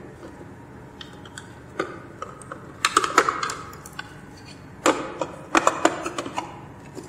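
Detachable plastic LCD keypad being fitted into the keypad slot of a Fuji FRENIC5000G11 inverter: a scatter of sharp plastic clicks and knocks, in clusters about three seconds in and again about five to six seconds in.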